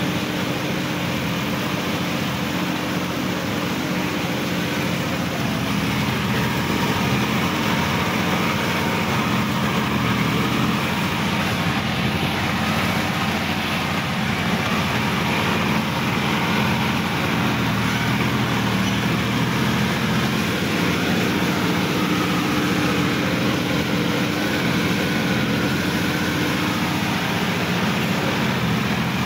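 Sonalika DI-50 RX tractor's diesel engine running steadily under load while pulling through deep paddy-field mud, its note rising slightly about six seconds in.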